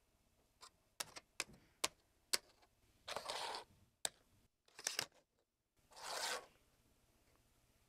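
Plastic game pieces being set down and handled on plastic hex terrain tiles: a run of sharp, light clicks, with two half-second scraping sounds, one about three seconds in and one about six seconds in.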